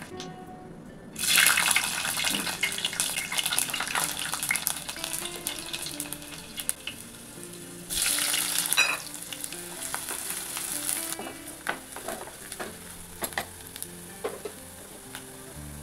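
Garlic dropped into hot oil in a clay pot sizzles sharply about a second in, then fries steadily with occasional clicks. Chopped onions tipped in about eight seconds in set off a second loud sizzle, which settles back into frying. Soft background music plays underneath.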